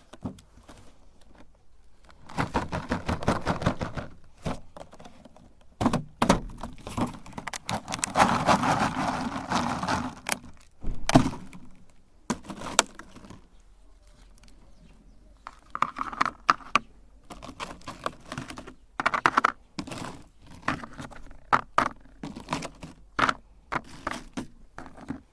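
Meat grinder crushing hard colourful candy: irregular crunches, cracks and thunks in several bursts with short pauses, the second half breaking up into many separate sharp cracks.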